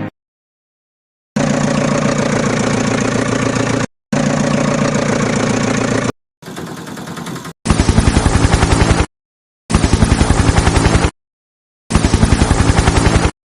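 Edited engine sound effects in short clips separated by dead silence. First a steady motor drone twice, then a quieter stretch, then three bursts of rapid chugging pulses, about nine a second.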